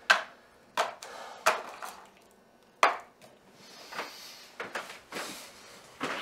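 Small objects knocked and set down on a wooden bedside table: four sharp knocks, the loudest nearly three seconds in, then softer rustling and a few lighter taps.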